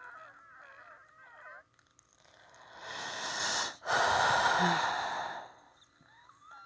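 Wheezing breathing of a person with influenza A. Thin, wavering whistling tones sound for the first second and a half. Then comes a long, loud, rushing breath in and out, with a brief break between them about halfway through.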